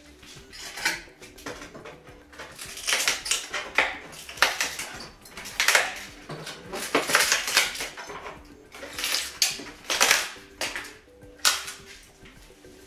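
A hand tool scraping and rasping against a wooden door frame, in a series of irregular strokes.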